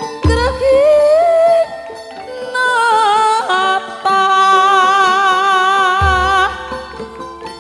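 Javanese sindhen (female singer) holding a long, gliding melismatic line with wide vibrato over gamelan-style accompaniment of plucked zither and struck tones, with low thumps near the start and toward the end.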